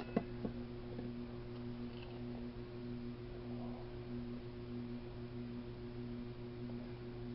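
Steady low hum with a steady tone over it and a second tone that pulses on and off regularly. Two small sharp clicks come about a fifth and half a second in.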